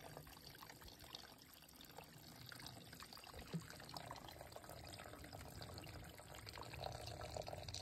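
Thin trickle of spring water falling from a rock lip into a shallow pool, faint and steady.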